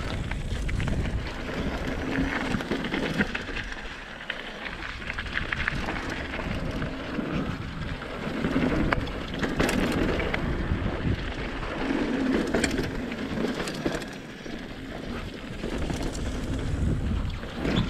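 Mountain bike descending a flow trail: tyres rolling over the dirt with a steady stream of small clicks and rattles from the bike, and a rumble that swells and fades several times.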